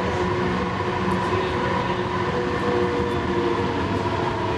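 Interior running noise of a Siemens S70 light rail car moving at speed: a steady rumble of wheels on rail with several steady humming tones over it.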